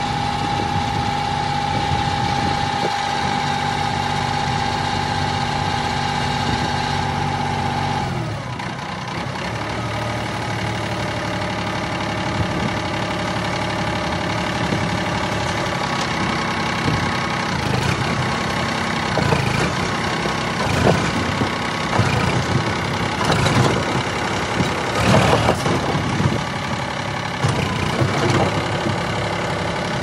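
New Holland 4010 tractor's diesel engine running steadily as its trailer is tipped to dump mud. A steady high whine runs with the engine and cuts off about eight seconds in. Irregular knocks and rattles come through in the later part.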